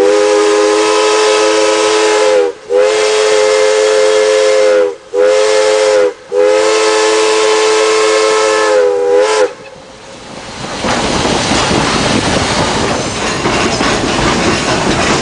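Steam locomotive's chime whistle heard from the cab, sounding several notes at once in four blasts: two long, one short, one long. This is the standard signal for approaching a level crossing. After the whistle stops, the rolling noise of the train running along the track builds again.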